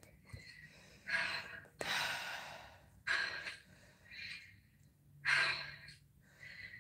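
A woman breathing hard, with a series of heavy, gasping breaths roughly a second apart, winded from a set of exercises.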